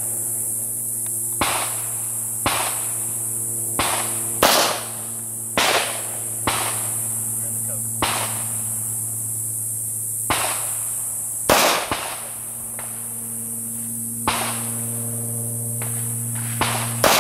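Gunshots on a firing range: about a dozen single shots at uneven intervals, some loud and close, others fainter from further down the line, over a steady low hum.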